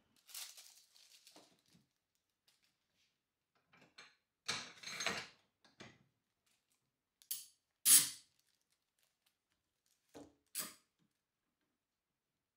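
Handling noise of a clamp-up: scattered clicks, knocks and rustles as wax paper is handled and bar clamps are set and tightened on a board, the sharpest click about eight seconds in.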